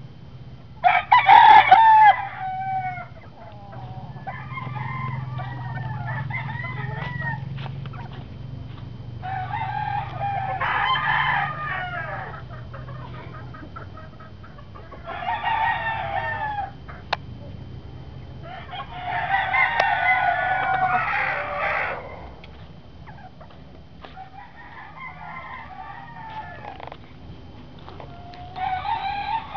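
Several roosters crowing in turn, some close and some farther off: about seven crows, the loudest about a second in, with a faint steady low hum underneath.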